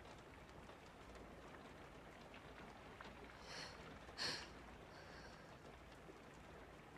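Near silence with a faint hiss, broken a little past the middle by two soft, short breaths from a woman, then a fainter one just after.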